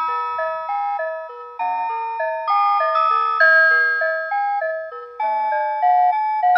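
Citizen Moulin alarm clock (made by Rhythm) playing one of its seven built-in alarm melodies: a chiming tune in several voices, with quick notes changing several times a second.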